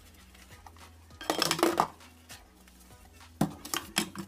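Dishes being washed by hand in a stainless steel sink: plastic bowls and a ceramic plate clatter and knock against each other and the sink as they are scrubbed and set down. There is a burst of clattering just over a second in, and a few sharp knocks near the end.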